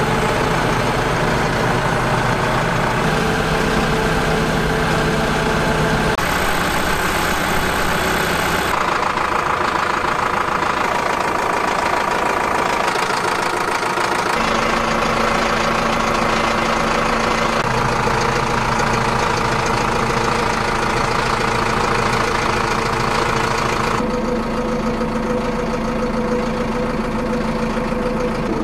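Zetor tractor's diesel engine idling steadily, heard from the cab, its note shifting a few times.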